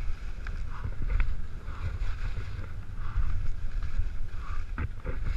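Skis scraping and hissing over soft, bumpy snow on a downhill run, with wind buffeting the microphone in a steady low rumble. A few sharp clicks and knocks come through, about half a second and a second in and twice near the end.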